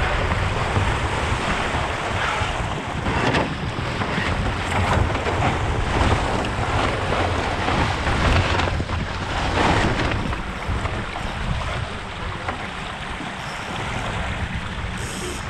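Wind buffeting the microphone over the rush and splash of water along the hull of an RS K6 sailboat sailing fast downwind, with a few louder surges of spray.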